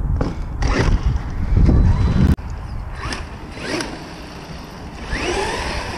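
Traxxas X-Maxx electric RC monster truck driving off, its brushless motor whining in repeated rising pitch sweeps as it accelerates. A heavy low rumble dominates the first two seconds and cuts off abruptly.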